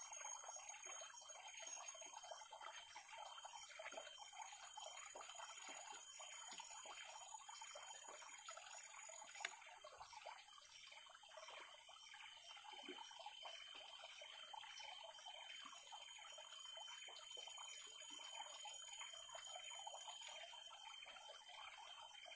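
Faint outdoor ambience: a soft, steady trickling-like hiss with small irregular rustles as chopped leaves and herbs are pushed by hand into a green bamboo tube. Steady high-pitched insect tones run underneath, and there is a single sharp click about nine seconds in.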